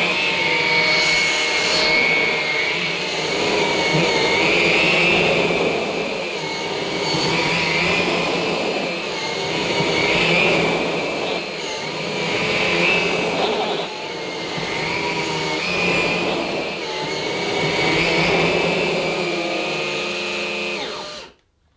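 Two Numatic Quick cordless stick vacuums, the Hetty Quick and the Henry Quick, running together on carpet. Their motor whine wavers in pitch every two to three seconds as the floor heads are pushed back and forth, and the sound cuts off suddenly near the end.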